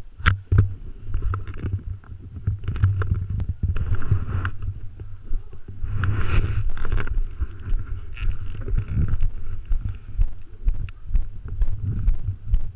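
Low rumble and buffeting on an action camera's microphone, with frequent knocks and rubs from the camera being handled and fitted.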